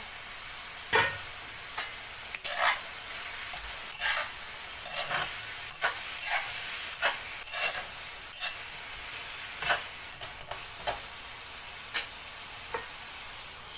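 Stir-fry of bell peppers, black fungus and sliced pork sizzling steadily in a steel wok, with a spatula scraping and knocking against the pan every second or so as it is stirred.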